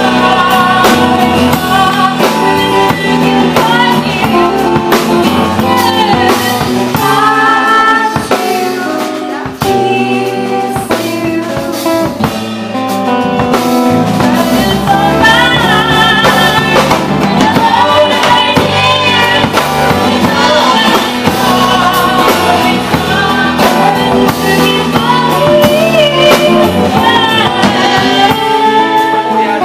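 Live band playing a song: a singer's voice over strummed acoustic guitar and a drum kit.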